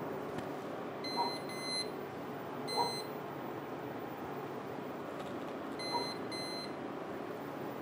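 Short electronic beeps from the UV printer's control panel as its keys are pressed to move the print carriage: five beeps, a pair, then a single, then another pair, each with a faint click of the key.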